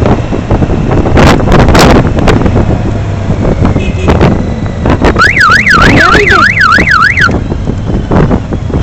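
Wind buffeting the microphone over motorcycle engine and road noise while riding. A little past halfway, a siren-like tone warbles up and down about three times a second for about two seconds.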